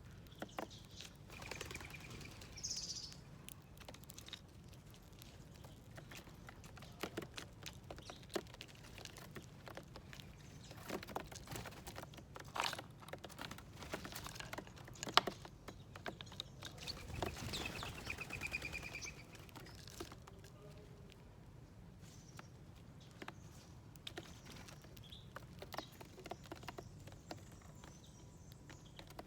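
Small wild birds at a feeding plate: scattered short chirps and calls, with a quick trill about two-thirds of the way through, among many sharp little taps and clicks.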